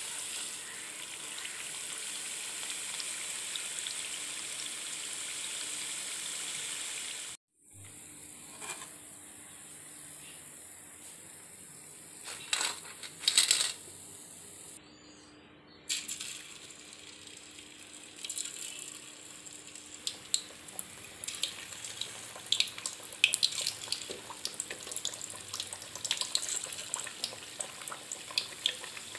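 Rice-flour chekkalu deep-frying in hot oil in an iron kadai: a steady sizzle, which breaks off at a cut about seven seconds in. A quieter stretch follows with a couple of sharp clinks. From about sixteen seconds in, a fresh batch crackles and pops in the oil.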